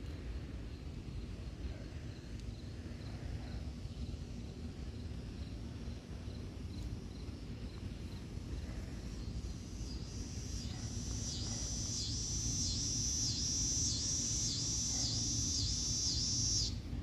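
A high insect buzz pulsing about one and a half times a second, starting a little over halfway through, swelling, then stopping abruptly near the end. Faint, fast high ticking comes before it, over a steady low rumble.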